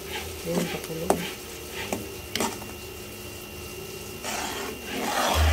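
Spatula stirring a simmering cream sauce in a non-stick frying pan, with a few light taps and scrapes against the pan and a denser bubbling and stirring noise near the end.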